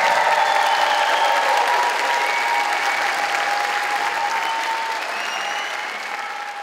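Concert audience applauding and cheering after a steel-band performance, with a few held whoops over the clapping, slowly dying down toward the end.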